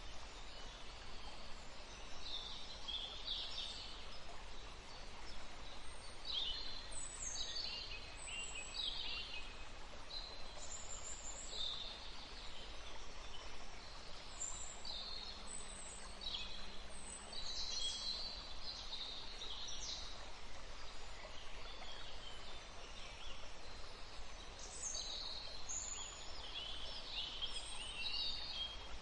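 Small forest stream flowing with a steady hiss, under many short, high songbird calls and chirps.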